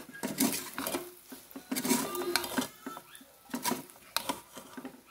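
Metal spoon scraping and clinking against a stainless steel pot while stirring cooked rice with fried meat pieces, in several bouts of strokes.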